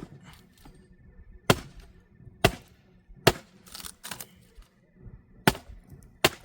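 A series of about six sharp knocks or cracks at uneven intervals, each short and sudden with quiet between them.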